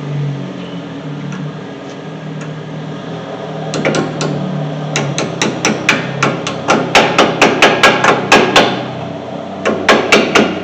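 Hammer tapping new brake pad hardware clips into place on the caliper bracket, a quick run of sharp metallic taps about four to five a second. The taps start about four seconds in, stop briefly, and come again as a few more taps near the end.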